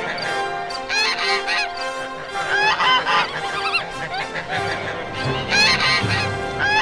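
Geese honking in repeated bursts of calls over background music.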